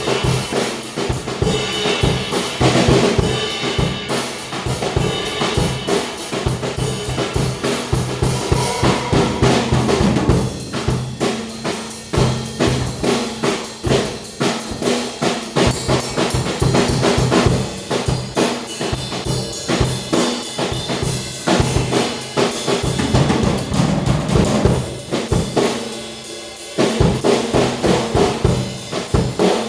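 Drum kit being played: a dense run of bass drum, snare and cymbal strokes, with short dips near the end.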